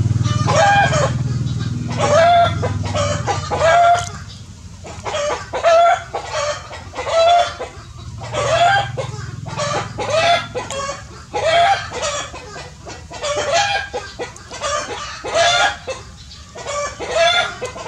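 Short animal calls repeated a little over once a second, each rising then falling in pitch. A low hum fades out in the first few seconds.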